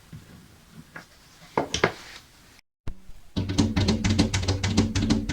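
A few sharp knocks and clinks, then a sudden cut to silence, after which drum-driven background music with a fast, busy beat starts and carries on.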